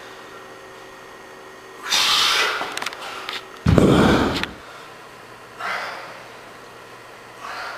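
A weightlifter breathing out hard in short bursts between dumbbell curl reps. About four seconds in there is a loud rumble of camera handling lasting under a second as the camera is swung about.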